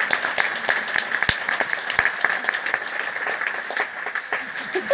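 Theatre audience applauding, many hands clapping densely and steadily.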